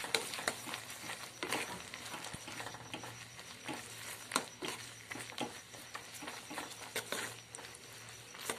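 A metal spoon stirring roasted gram into hot jaggery syrup in a metal pan: irregular clicks and scrapes of spoon and dal against the pan over a faint hiss.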